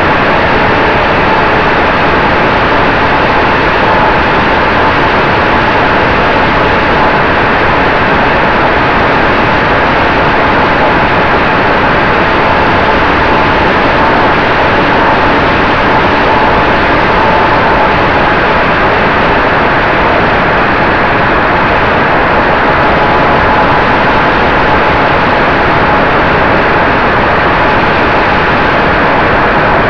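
Steady, loud rush of air over the onboard camera of a radio-controlled model Cessna 188 in flight, with a faint steady whine from its motor and propeller underneath.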